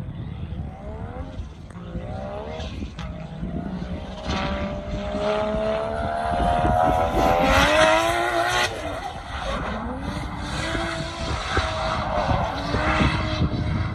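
Drift car's engine revving hard as it slides through the corners: the pitch climbs steadily for several seconds, drops sharply about eight seconds in, then rises and falls in several shorter swells.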